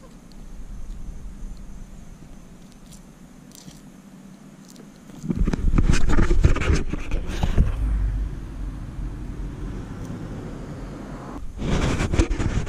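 A single-edge razor blade scraping cured windshield-repair resin off the glass, faint. About five seconds in, loud rumbling and rustling of wind and handling on the camera's microphone as it is moved, rising again near the end.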